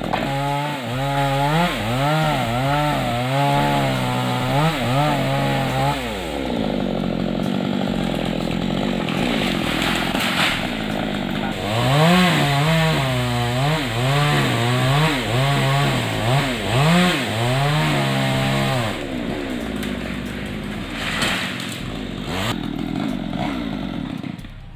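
Two-stroke chainsaw felling a jabon tree, its engine revving up and down repeatedly in two spells of throttle blips, with steadier running in between. The engine drops away near the end.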